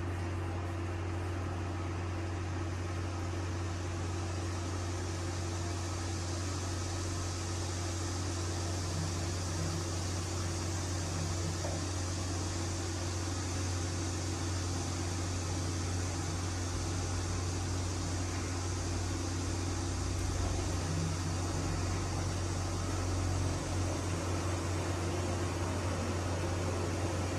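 Coin-laundromat washing machine running, a steady low hum under an even hiss that grows slightly after the first few seconds.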